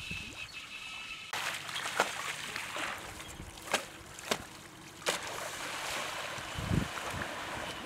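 Water hissing and splashing around a cable-towed hydrofoil wakeboard, with wind on the microphone. A few sharp clicks come about two, four and five seconds in, and there is a low rumble near the end.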